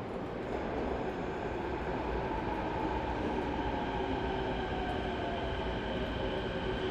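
Kobe Municipal Subway 1000-series train running, with the rumble and hiss of the running gear under the whine of its IGBT VVVF inverter and traction motors. Several steady tones are heard, some sliding slowly in pitch, and the sound grows a little louder over the first two seconds.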